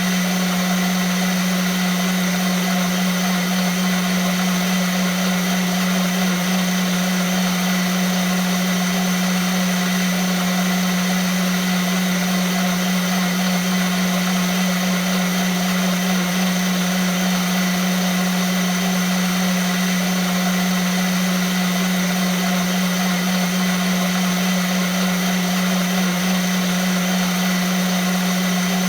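Vitamix blender motor running steadily without change, a strong deep hum with a thin high whine over a dense rushing noise.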